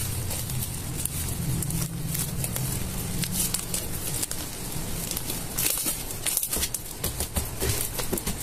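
Slime being squished and worked by hand, giving a dense run of small wet clicks and crackles over a low hum.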